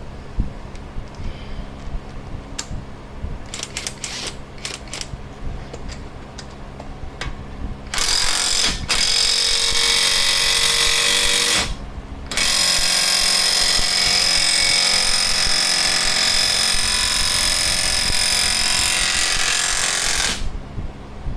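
Impact wrench running in two long bursts, the first about four seconds and the second about eight, each stopping abruptly. A few light metallic clicks come before them.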